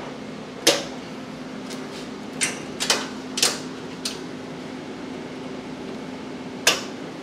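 Sharp metallic clinks of steel hook fittings being set into holes in a steel shelf edge: about six clinks, the loudest about a second in and near the end, over a steady machine hum.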